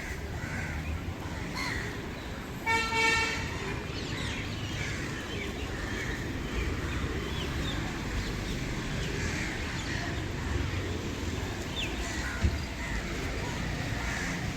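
A large flock of birds calling together, a steady din of many short overlapping calls over a low rumble. A vehicle horn honks once, briefly, about three seconds in.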